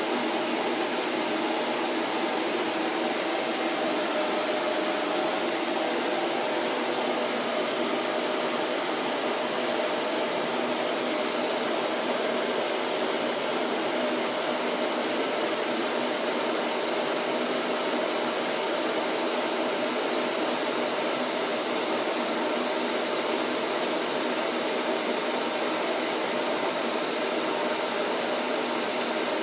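Vacuum cleaner motor running steadily, a constant rushing whir with a faint hum and no changes in pitch or level.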